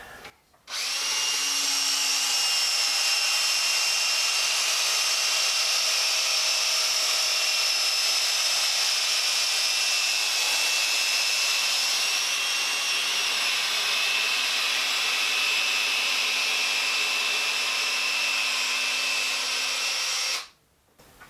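Electric drill spinning a bronze bore brush on a cleaning rod inside the barrel of a Lee-Enfield No4 Mk1 rifle, scrubbing out softened fouling. It runs at a steady speed with a high, even whine, starting just under a second in and stopping shortly before the end.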